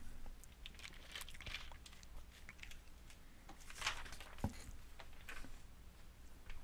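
A person taking a quiet sip of water: faint mouth clicks and small handling noises, with a short breathy sip about four seconds in followed by a soft thump.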